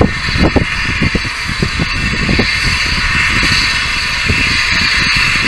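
Steady hiss and distant running of the Hudswell Clarke 0-4-0 steam locomotive 'Waleswood' as it approaches with its passenger train, under gusty, uneven rumbling from wind on the microphone.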